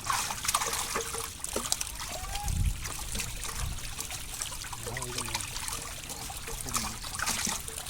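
Pond water splashing and trickling, with many small sharp splashes, as a fishing net is worked in the water. There is a low thump about two and a half seconds in.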